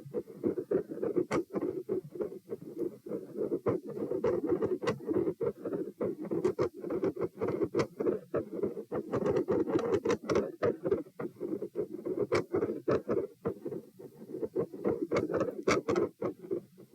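Heart sounds heard through a stethoscope held at position P, beating steadily under many irregular scratchy clicks and rubbing noises.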